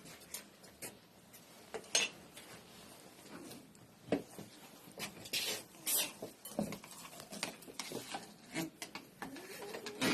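Cat food bowls and utensils clinking and clattering in short irregular knocks as food is dished out, with a few cats meowing now and then.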